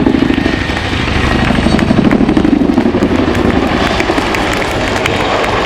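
Boeing Chinook tandem-rotor helicopter flying by, its two rotors beating out a deep, rapid blade slap. The sound swells loudest about two seconds in.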